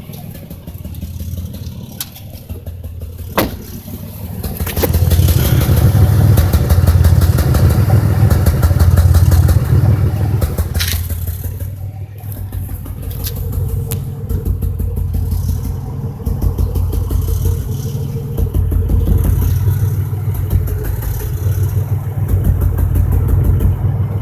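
2005 Chevy Impala's 3800 V6 running with an uneven, stuttering rhythm, the sign of a cylinder 5 misfire (code P0305) that a new spark plug, wire and injector have not cured. It gets louder about five seconds in, and a few sharp clicks sound over it.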